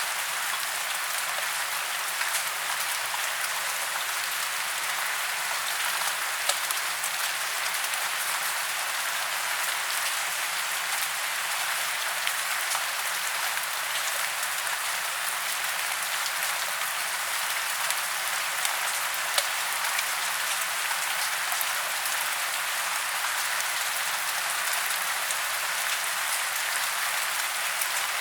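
Steady rain falling through tree branches in woodland: an even hiss of rainfall with scattered individual drop ticks.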